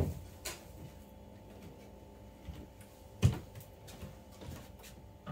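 Faint steady hum with a few scattered clicks and knocks; the loudest is a single knock a little over three seconds in.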